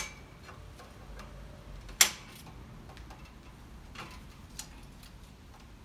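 D-lock being fitted and locked around a bicycle's wheel and frame and a steel rack post: a click at the start, a sharp loud click about two seconds in, then a few lighter ticks.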